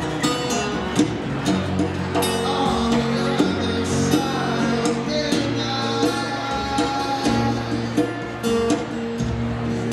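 A live acoustic song: a steel-string acoustic guitar strummed with djembe hand-drum strokes keeping time, and a man's voice singing over them.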